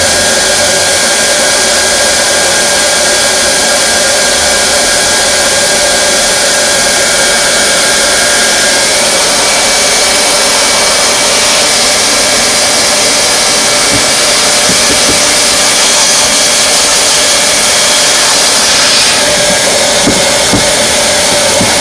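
Hot-air plastic welding gun blowing a steady, loud rush of hot air with an even hum as TPO roofing membrane is heat-welded at a seam. A few light knocks come in the second half.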